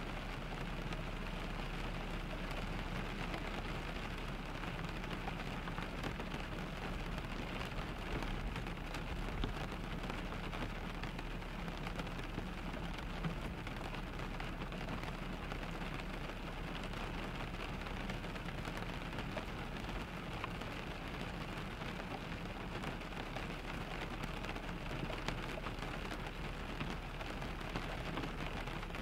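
Steady rain pattering on a car, with an even low rumble underneath and a few slightly louder drops.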